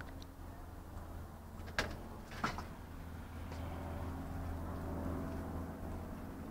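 Light propeller plane flying low overhead, its engine giving a steady drone that grows a little louder past the middle. Two sharp clicks sound about two seconds in.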